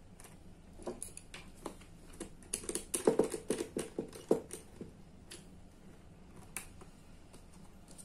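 Scattered clicks and light knocks of hands handling stiff insulated wires against plastic contactor and circuit-breaker housings, thickest and loudest around three to four seconds in.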